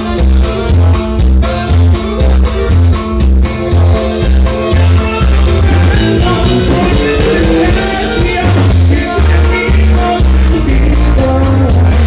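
Live band playing loud dance music with a steady bass beat and a melody line over it.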